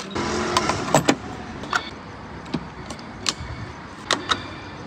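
Scattered sharp clicks and knocks, about eight in all, over a steady hiss that is louder for the first second and a half.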